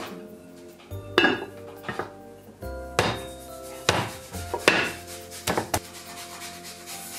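A ceramic plate clinking and knocking against a metal rice-cooker inner pot as the pot is turned upside down onto the plate: about half a dozen sharp knocks at irregular intervals, over gentle background music.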